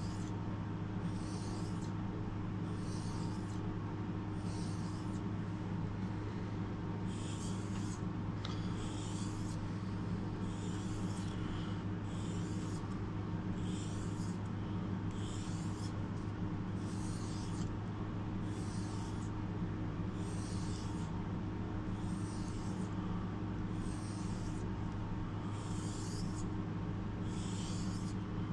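Knife blade being stroked along a whetstone, a short scrape about once a second, over a steady low hum.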